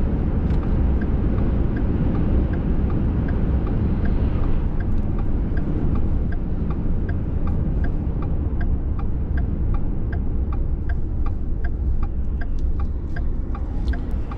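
Steady engine and tyre rumble inside a moving minivan's cabin, with the turn-signal indicator ticking evenly as the van takes a turn.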